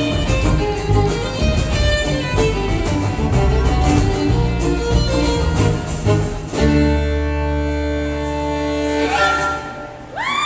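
Live acoustic band playing with a violin on top, in quick-moving notes, then settling about six and a half seconds in onto one held final chord that fades away near the end.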